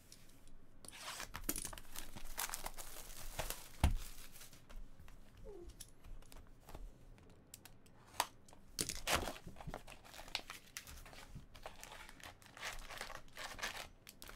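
Plastic shrink wrap on a sealed box of trading cards crinkling and tearing as it is slit with a pen and stripped off, in irregular crackly bursts. One thump about four seconds in.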